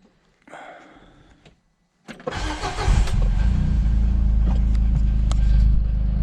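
John Deere 675B skid steer's engine cranking and catching about two seconds in, then running steadily at idle from a cold start, left to warm up.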